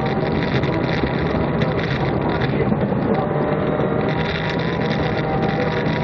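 Subaru Impreza GDB rally car's turbocharged flat-four engine running hard at high speed, heard from inside the cabin, steady, with road and wind noise from the loose stage surface.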